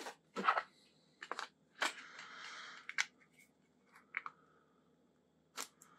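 Hard plastic phone case, a Samsung Galaxy S23 Ultra rugged case, being handled and fitted: scattered sharp clicks and crinkling rustles, with a longer scraping rustle about two seconds in.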